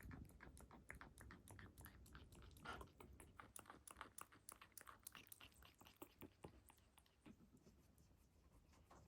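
Faint, quick, uneven clicks and crunches of a parrot chewing with its beak. They thin out and stop about seven seconds in.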